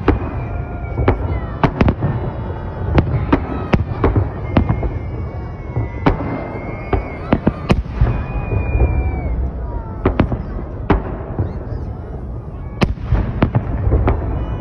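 Fireworks display: aerial shells bursting in quick, irregular succession, many sharp bangs over a continuous low rumble.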